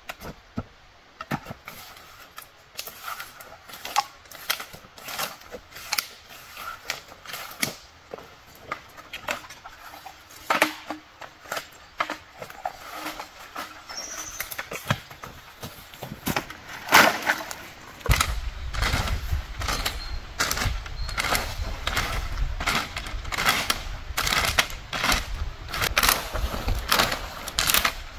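Dry sticks and branches knocking and snapping as they are dropped and gathered into a pile, in many short sharp cracks. About two-thirds of the way in, dry leaves and twigs are raked and scraped together, the clicks coming thicker and louder over a low rumble.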